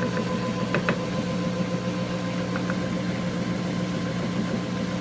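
LG washing machine running: a steady motor hum with a couple of light clicks about a second in.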